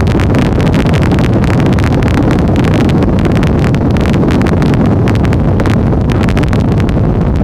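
Skater catamaran powerboat running at speed on twin Mercury outboards: a loud, steady rush of engine and water noise, heavily buffeted by wind on the microphone.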